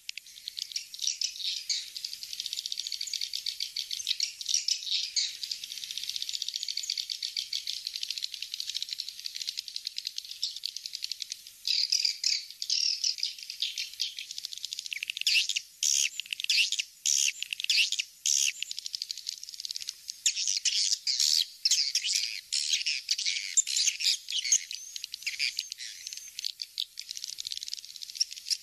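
Swiftlet call lure track: a dense, high-pitched chorus of swiftlets twittering and chirping rapidly, with a few short breaks in the second half. It is the kind of calling sound played through horn tweeters to draw swiftlets into a swiftlet house.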